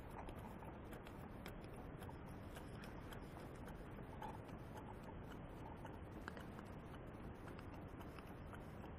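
Several small live-steam model engines running together, giving a faint, irregular clicking and ticking from their moving parts.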